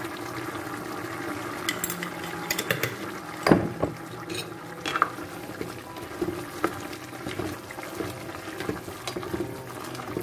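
A pot of zucchini, tomato and potato stew simmering while it is stirred, with a spatula and spoon scraping and knocking against the stainless steel pot; the sharpest knock comes about three and a half seconds in.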